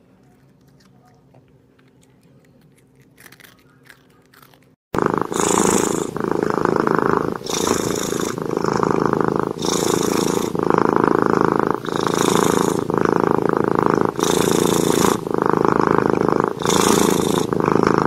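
Faint crunching of a cat chewing crumbs, then, about five seconds in, a cat purring loudly and close, swelling and easing with each breath about once a second. The purring comes from a tabby mother cat nursing her kittens.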